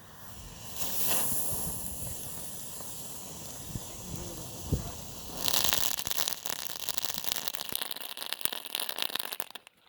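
Brothers Gray Dragon novelty firework burning with a loud rushing hiss. About halfway through it gets louder and crackles with many quick pops, then cuts off suddenly near the end.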